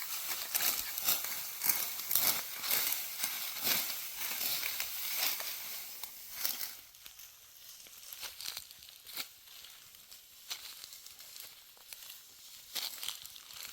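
Dry wheat stalks being cut with a hand sickle and gathered: rapid crackling and rustling for about the first six seconds, then sparser single snaps.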